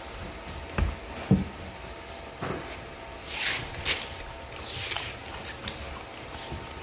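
Two dull knocks about a second in, then a few short swishing scrapes.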